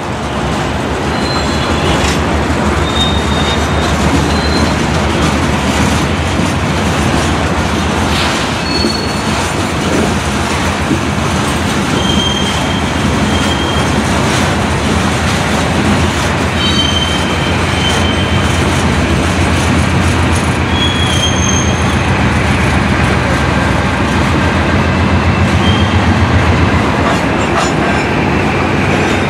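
Freight train's hopper cars rolling past, a steady rumble of steel wheels on rail with short high-pitched wheel squeals now and then.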